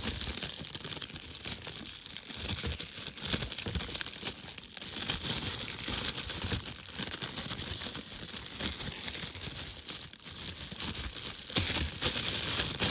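Packaging being handled and unwrapped: a continuous crinkling and rustling with many small crackles and an occasional tearing sound.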